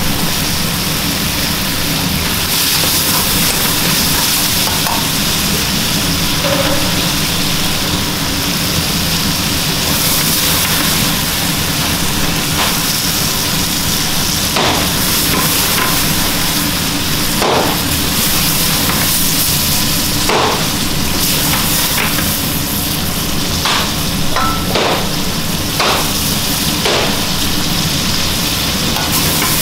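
Meat and vegetables frying in a wok over a high gas burner: a steady sizzle with the hiss of the flame. From about halfway through there are scattered metal clinks and knocks of a ladle against the wok and bowls.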